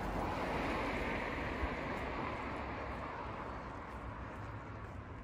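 A car driving past on the road, its tyre and engine noise loudest near the start and slowly fading away.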